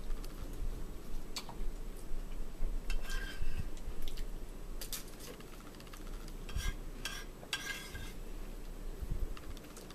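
Spoons scraping and tapping against plastic soup bowls while eating: a handful of short, scattered clinks and scrapes over a low steady room hum.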